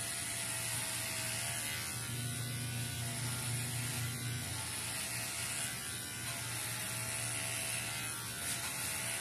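Electric hair clipper buzzing steadily as it shaves a strip of hair down to the scalp.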